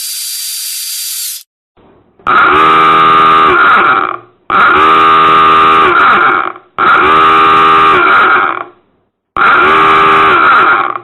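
A short burst of high hiss, then a horn sounding four long, loud blasts of about two seconds each with short gaps between them.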